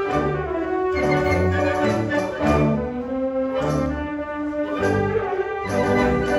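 A school wind band playing a concert piece: woodwinds and brass together, with low notes moving under held chords.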